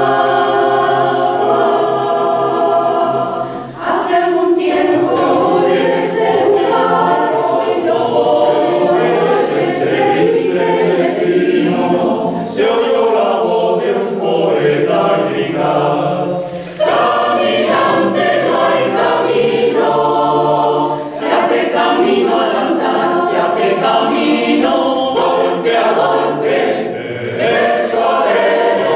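Choir singing in harmony, in long held phrases with short breaks between them.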